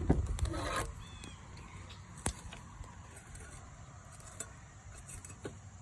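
Soil and sweet potatoes being handled in a harvest: a busier stretch of rustling in the first second, then a few scattered sharp knocks and clicks, with one short faint chirp.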